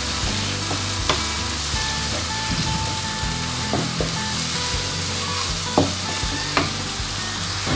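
Sliced onions sizzling steadily as they fry in olive oil in a frying pan, stirred with a wooden spatula. A few sharp knocks of the spatula against the pan come about a second in and twice near the end.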